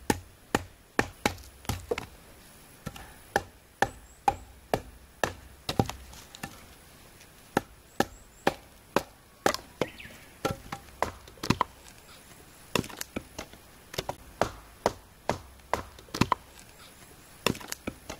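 Firewood being split from dry scrap boards with a hand blade: a long run of sharp wooden chopping blows, often about two a second, coming in groups with short pauses between them.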